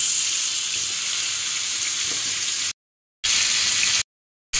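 Pumpkin cubes sizzling steadily in a little hot oil in a wide pan, being lightly fried. The sound cuts out to silence twice for about half a second near the end.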